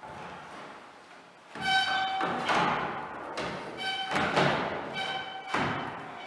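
Background music with short, repeated high pitched notes and swishing sounds between them.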